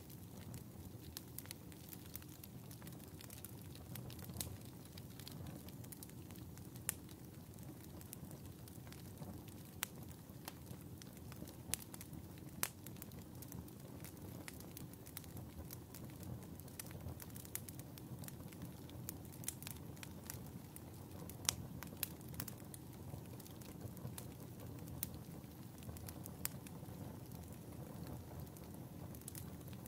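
Wood fire burning in a fireplace: a low steady rumble of flames with irregular crackles and occasional sharper pops.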